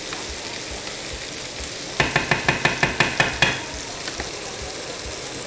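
Vegetables and sausage sizzling in a frying pan while being stirred with a wooden spatula. About two seconds in comes a quick run of about ten knocks of the spatula against the pan, lasting a second and a half.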